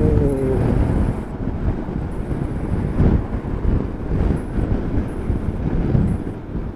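Gusty wind buffeting the microphone, a heavy churning rumble that rises and falls, with a short falling tone fading out about half a second in.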